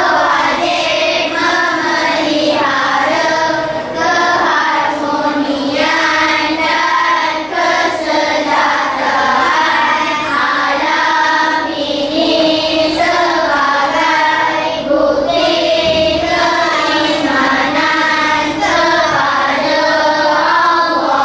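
A group of children singing a melody together in unison, line after line with short breaths between phrases.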